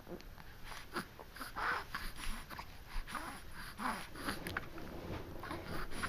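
Infant making a string of short, soft vocal noises and small mouth sounds.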